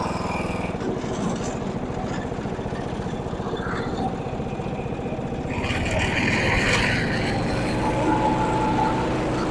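Simplicity rear-engine riding mower's engine running steadily while its cutting blade is engaged. The sound gets a little louder, with an added hiss, about six seconds in.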